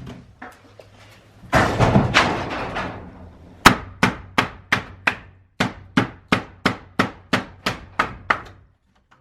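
A rough, rasping noise lasting about a second and a half, then a hammer striking wood in a quick steady run of about fifteen blows, roughly three a second, while a non-original wooden wall and door are torn out.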